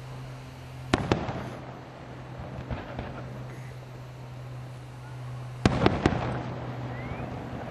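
Aerial fireworks shells bursting: two sharp bangs about a second in, softer pops near three seconds, and a quick cluster of bangs just before six seconds, with crackle in between. A steady low hum runs underneath.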